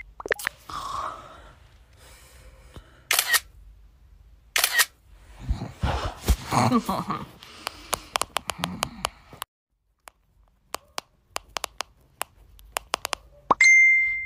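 Camera shutter sound effects clicking, sparse at first and then in a quick run, with one short ding near the end.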